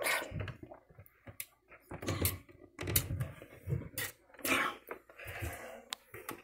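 Handling noise from a phone being moved about while a person shifts her seating: irregular clicks, taps and rustles.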